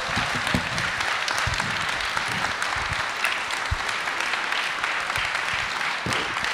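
Audience applauding, many people clapping steadily at an even level.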